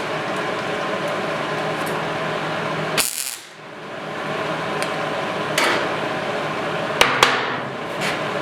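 Sharp metal knocks and clanks from hand tools and sheet-metal parts while a body panel is being fitted, with the loudest pair close together near the end. A steady shop hum runs underneath.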